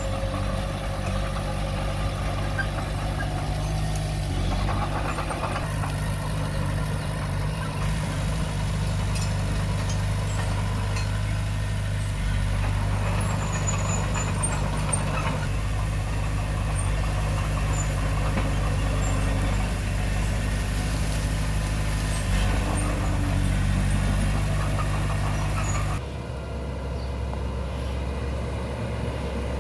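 Diesel engine of heavy earthmoving equipment running steadily, with an abrupt change in the sound about 26 seconds in.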